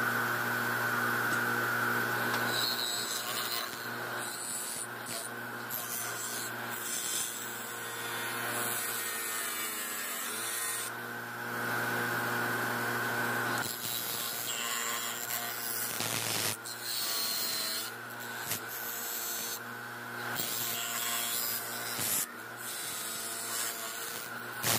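Bench grinder running with a steady hum while small metal parts are pressed against its spinning wire wheel to strip paint. A scratchy scrubbing comes and goes as each part is worked.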